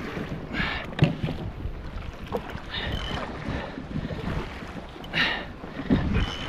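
Wind buffeting the microphone and choppy waves slapping and splashing against a jet ski's hull, with a sharp knock about a second in.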